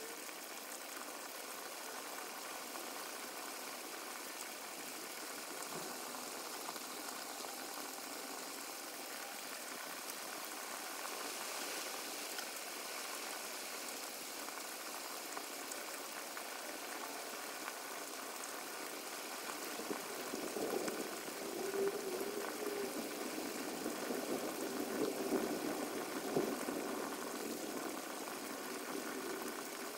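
Steady rain hiss, with a cluster of brief, irregular louder sounds from about twenty seconds in.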